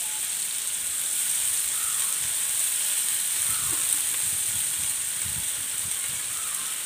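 Sliced onions sizzling steadily as they fry in ghee in a non-stick pan, with a spatula stirring them through it and making a few soft knocks midway.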